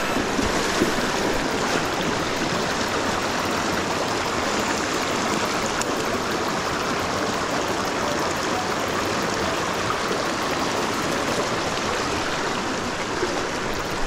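Mountain stream water rushing steadily.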